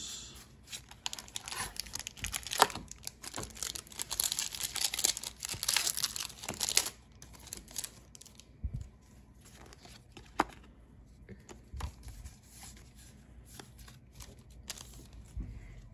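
Foil booster pack wrapper being torn open and crinkled, dense crackling for the first several seconds, then scattered light rustles and clicks.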